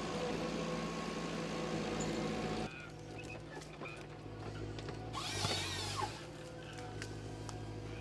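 Timber harvester with a Log Max harvesting head running, its engine and hydraulics a steady hum. The sound drops abruptly about two and a half seconds in, and a short high-pitched burst comes about five seconds in.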